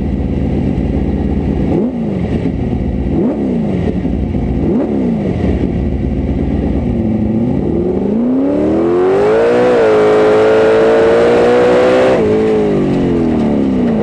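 Competition drill truck's engine under throttle: the revs rise and fall several times, then climb to a long high-revving run with a rushing hiss before dropping away about twelve seconds in.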